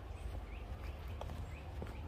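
Footsteps on a forest path, with a bird calling in short rising chirps about three times a second.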